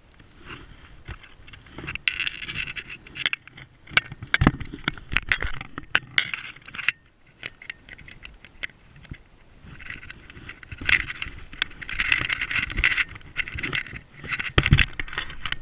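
River water splashing and sloshing as a landed salmon is handled in the shallows and in the landing net for release. Irregular clicks and knocks run through it, with uneven bursts of hiss.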